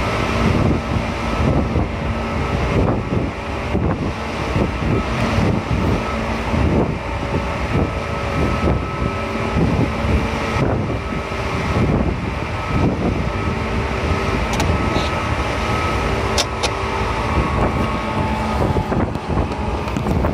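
Running sound inside a Seibu 2000 series electric train car moving at speed: a steady rumble of wheels on rail with a few constant hum tones, broken by frequent short knocks.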